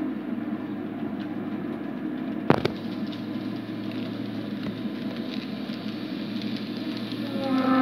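TT-scale model diesel locomotives hauling a train of boxcars along the layout: a steady running hum and rumble, with one sharp click about two and a half seconds in. A low, moo-like horn starts just before the end.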